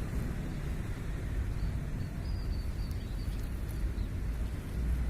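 Outdoor background noise: a steady low rumble, with a faint run of short high chirps about two to three seconds in.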